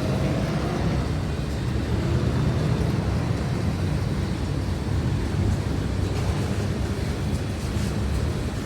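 Freight train rolling past slowly: a steady, even low rumble.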